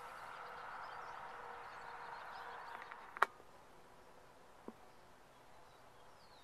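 Faint steady outdoor hum that stops with a sharp click about three seconds in, followed by faint, quieter background with one small tick.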